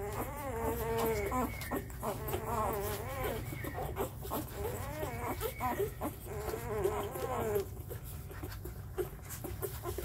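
Four-day-old Labrador puppies squeaking and whining over one another as they jostle to nurse from their mother, many high wavering calls overlapping; the calls thin out about eight seconds in, leaving short clicking sounds, over a steady low hum.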